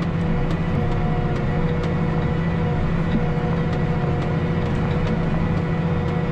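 John Deere 8320R tractor's six-cylinder diesel running steadily under load while pulling a 637 disk through dry soil, a constant hum with several held tones and faint scattered ticks.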